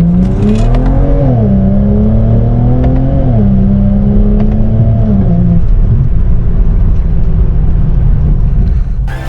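BMW 335i's N55 turbocharged inline-six accelerating under load: the engine note climbs, drops about a second in and again near three seconds in as the gearbox shifts up, then holds steady and eases off into road noise for the second half.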